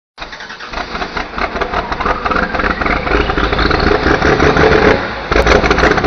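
Farm pulling tractor's engine running hard and revving, with a whine that rises about two seconds in.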